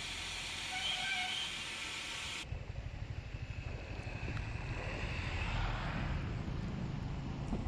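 Steady rushing hiss of a waterfall. About two and a half seconds in, it cuts abruptly to riding sound: the motorcycle's low rumble with uneven wind buffeting on the microphone.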